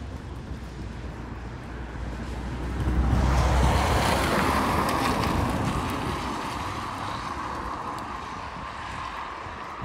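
A vehicle passing on the wet road, its tyres hissing on the wet asphalt: the sound swells about three seconds in and slowly fades away as it recedes. Low wind rumble on the microphone early on.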